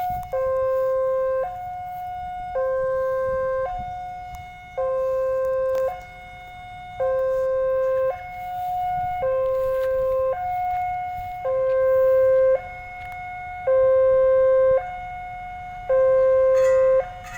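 Electronic railway level-crossing warning alarm sounding a two-tone signal. A lower and a higher tone alternate about once a second, warning that a train is approaching.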